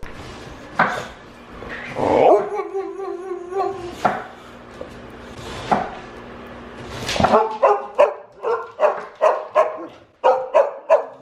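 A dog barking: a few single barks and a drawn-out wavering whine in the first few seconds, then a fast run of barks, about three or four a second, over the last few seconds.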